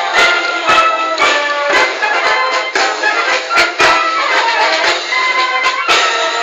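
Military brass band playing a march on the move, with sustained brass melody over drum beats about twice a second.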